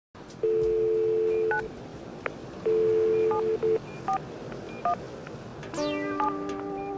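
Landline telephone dial tone, a steady two-note hum, heard twice and broken off by single touch-tone keypad beeps as a number is dialed. Chiming music like a glockenspiel comes in near the end.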